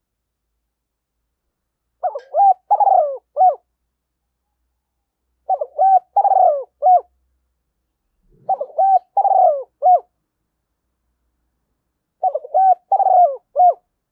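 Spotted dove cooing: four phrases of several short coos each, a few seconds apart.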